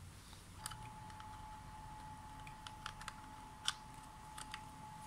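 A few faint clicks and taps as a thin audio cable is plugged into the side of a laptop. Under them, a faint steady high tone starts about half a second in.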